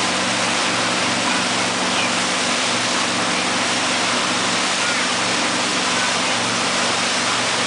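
Speedboat under way: a steady rush of churning wake water over the low, even drone of the boat's engine.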